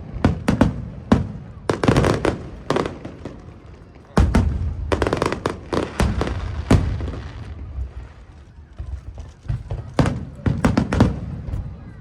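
Aerial fireworks bursting in rapid clusters of booms and crackles, the heaviest run about four seconds in, a lull, then another volley near the end.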